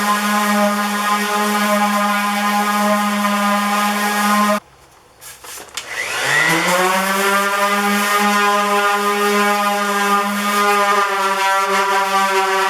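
An electric power tool's motor running steadily with a pitched whine. It cuts off abruptly about four and a half seconds in, then about a second later spins back up, its pitch rising, and runs steadily again.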